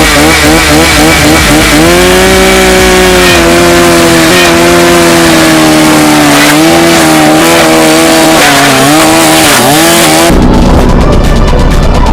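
Chainsaw engine running at high revs with a steady pitch, which dips briefly twice near the end. About ten seconds in it gives way suddenly to music with a beat.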